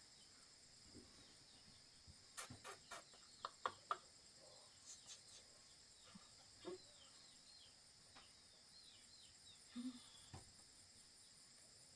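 Faint, steady high-pitched insect drone with scattered short falling bird chirps, and a quick run of sharp clicks or knocks about two and a half to four seconds in.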